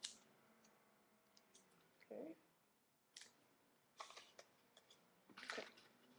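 Quiet, scattered rustles and clicks of rolled paper tubes being handled, in a few short separate bursts, the last one the loudest.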